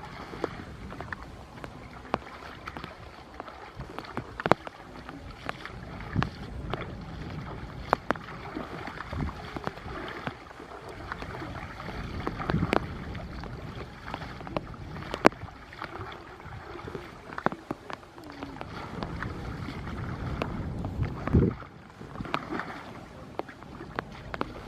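Water sloshing and splashing, with irregular clicks and knocks throughout.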